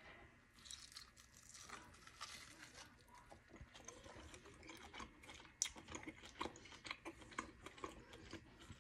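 Faint chewing of a mouthful of cheeseburger: soft, irregular mouth clicks that come thicker in the second half.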